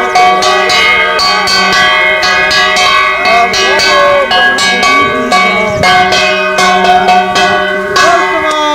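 Devotional kirtan: small hand cymbals (kartals) struck in a fast, even beat, their ringing layered over a low steady hum and voices singing along.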